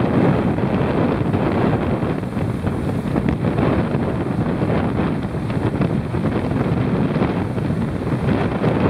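Strong storm wind from Hurricane Sandy buffeting the microphone: a heavy, rumbling rush that rises and falls slightly.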